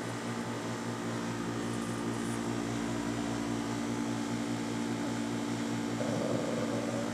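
Steady mechanical hum of a running motor, holding several fixed low tones without change.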